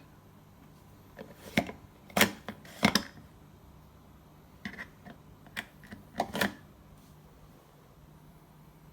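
Sharp clicks and knocks from the fittings of a Kenwood slimline dishwasher being handled, such as the rinse aid dispenser cap and racks. There are about three loud ones in the first three seconds and a second, softer run of clicks about halfway through.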